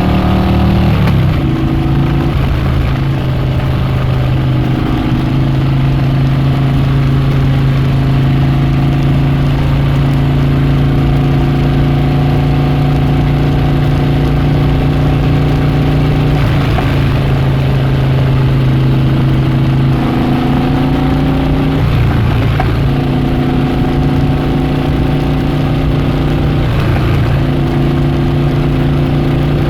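Harley-Davidson Dyna Switchback's V-twin engine and exhaust running at steady revs. The engine note drops about a second in, holds steady, then rises slightly about twenty seconds in.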